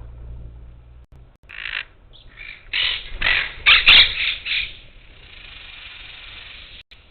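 Parakeets squawking at a feeder: a run of harsh, raspy screeches starting about a second and a half in and loudest around four seconds, then a fainter steady chatter that cuts off near the end.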